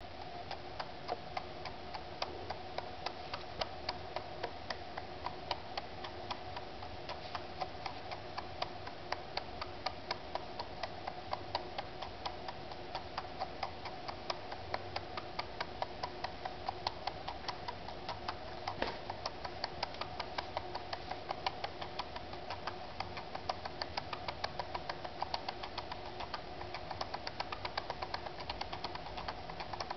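Homemade 3D-printed stepper motor, with hand-wound magnet-wire coils and a neodymium-magnet rotor driven by an Arduino through a ULN2003 transistor array, stepping with a rapid, regular clicking over a steady hum.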